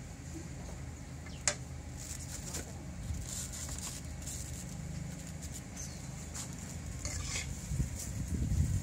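Cooking clatter: a metal spatula and utensils knocking against a wok and dishes in scattered short clicks, the sharpest about a second and a half in, over a steady low rumble.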